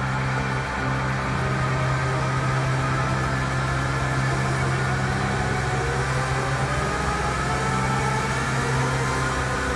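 Sequential Circuits Pro-One analog synthesizer holding a steady low drone with layered overtones. From about halfway through, a tone sweeps slowly upward over it.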